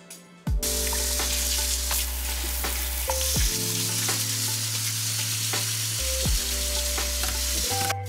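Tap water running in a steady hissing stream onto pork belly in a stainless mesh strainer in a sink, rinsing off the blanched meat. The water comes on about half a second in and stops near the end, over soft background music.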